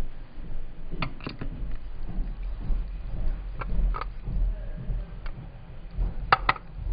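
Clear plastic eyelash cases clicking and clacking against one another as a hand picks through a pile of them. Sharp clicks come every second or so, with the loudest pair near the end, over a low steady rumble.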